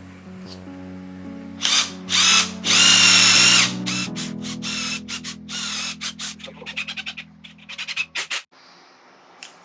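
Power drill running in three bursts, the last about a second long with a high whine, then a run of short, quick trigger pulses, over background music.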